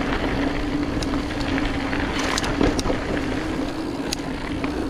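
Mountain bike rolling down a trail: steady rushing noise from tyres and air with a steady hum, broken by sharp clicks and rattles of the bike over bumps, the loudest a little under three seconds in.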